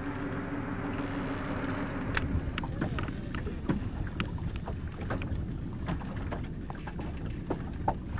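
Wind rumbling on the microphone in a small open boat, with scattered light clicks and knocks from a rod and reel being worked. A steady low hum runs for about the first two seconds and then stops.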